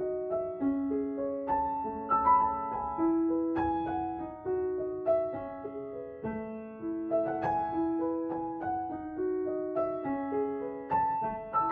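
Background music: a piano playing a steady run of single notes and chords, each note fading after it is struck.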